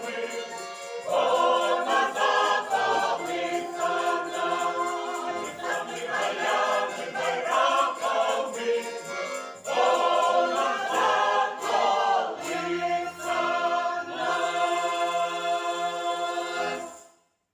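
Folk choir singing in Ukrainian, accompanied by bayan (button accordion) and violin, closing on a long held final chord that stops abruptly near the end.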